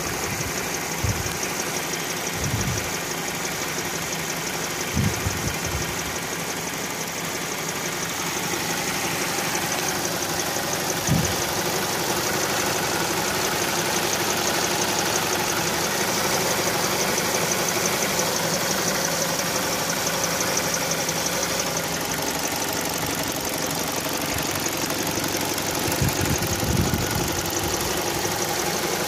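Ford 2.0L Split Port four-cylinder engine idling steadily, with a fast, even ticking noise running through it; whether the noise comes from inside the engine or from something outside it is not known.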